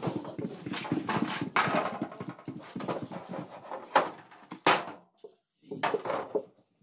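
A greased hand rubbing over the inside of a sheet-metal baking tray. About four seconds in there are two sharp metal clanks as the trays are shifted against each other.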